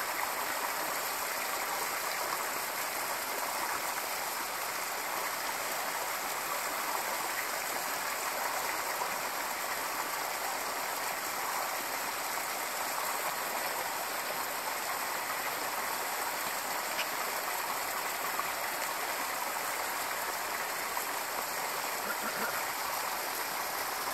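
Mountain stream flowing, a steady rushing of water that holds an even level.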